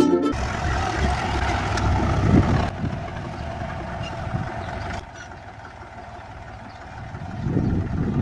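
Fordson Dexta tractor's three-cylinder diesel engine running steadily while the tractor pulls a rotary slasher through grass. The sound is louder in the first few seconds, quieter in the middle, and rises again near the end.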